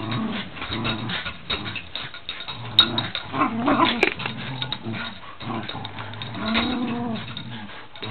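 Dogs growling in play during a game of tug of war: a continuous low growl, with a few drawn-out cries that rise and fall in pitch and a couple of sharp clicks.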